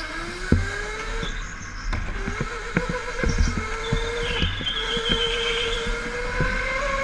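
Go-kart running through corners, its motor note rising in pitch as it picks up speed, with occasional knocks and rattles from the kart.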